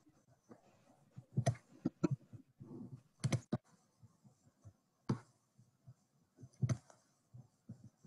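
Clicking at a computer: roughly ten sharp clicks at irregular intervals, some in quick pairs, with quiet between them.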